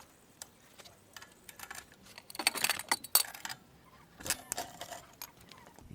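Small metal parts clinking and jangling as they are handled. The strokes are light and sharp, bunched most thickly between about two and a half and three and a half seconds in, with another clink a little after four seconds.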